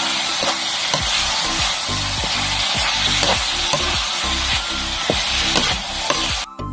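Pork and julienned ginger sizzling in a wok while a metal spatula stirs and scrapes through them, over background music with a steady beat. The sizzling cuts off suddenly near the end, leaving only the music.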